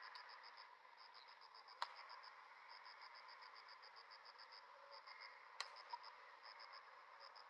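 A cricket chirping faintly in a steady high pitch, in short runs of rapid pulses with brief gaps between them. Two sharp clicks come about two seconds in and again past halfway.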